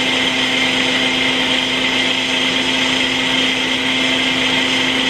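Ninja Professional Plus Blender Duo running at a steady speed, blending a protein shake with milk and ice in its 24-ounce single-serve cup. It makes a loud, steady motor hum with a whirring over it.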